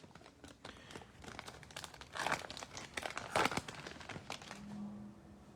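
Trading-card pack wrapper crinkling and cards rustling as they are handled, with louder rustles about two and three and a half seconds in.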